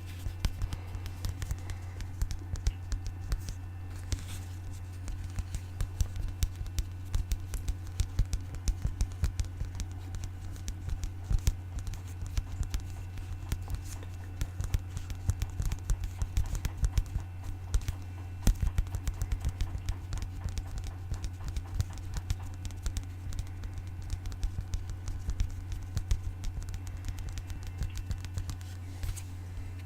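Rapid, irregular tapping on objects: many small sharp clicks close together, over a steady low hum.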